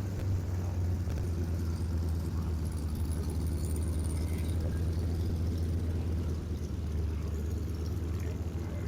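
Piston engine of a propeller airplane running with a steady low drone.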